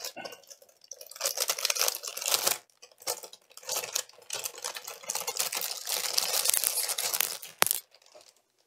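Clear plastic packaging bag crinkling and rustling in bursts as a flat wooden harp-kit frame is handled and slid out of it, with one sharp tap near the end.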